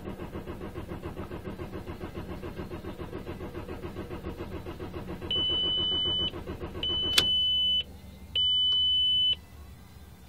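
Starter cranking the 1.9 TDI diesel of a 2001 VW Passat in a steady rhythm without the engine firing: a crank-no-start caused by a blown fuel pump fuse, so no fuel is delivered. Past the middle, three long dashboard warning beeps sound, the oil pressure warning, and the cranking stops with a click between the first two.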